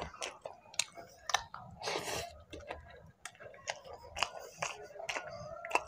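Close-miked chewing of mutton pulao eaten by hand: wet mouth clicks and smacks come several times a second, with a longer noisy crunch about two seconds in.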